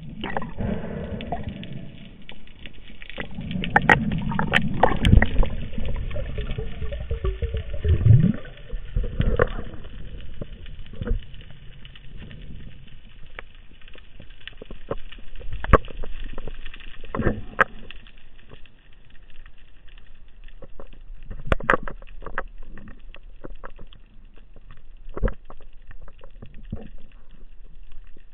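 Muffled underwater sound heard through a camera's waterproof housing: rushing of water with scattered clicks and knocks, loudest in the first ten seconds.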